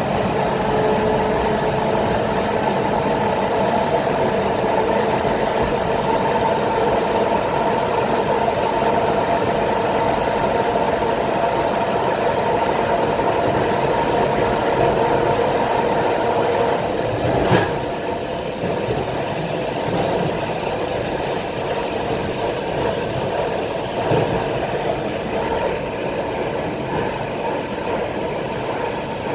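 ET2M electric multiple unit running at speed, heard from inside the passenger car: steady rumble of the train on the track with a steady whine over it that fades after about seventeen seconds, and a single knock at about that point.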